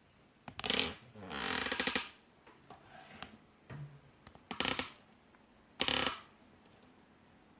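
Four short bursts of rasping handling noise, the second about a second long with a fast fluttering buzz, the last two brief and sharp.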